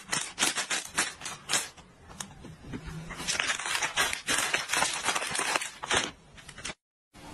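Plastic snack packaging being crinkled and rustled by hand in quick, crackling bursts, cutting off briefly near the end.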